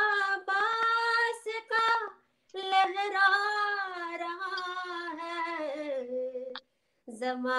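A woman singing a naat unaccompanied, holding long notes that bend and waver in pitch, in three phrases separated by short pauses for breath.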